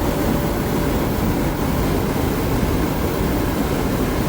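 Semi truck rumbling steadily with road noise, an even low drone without breaks.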